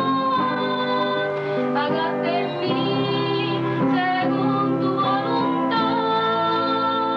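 Music: a woman singing long held notes over instrumental accompaniment.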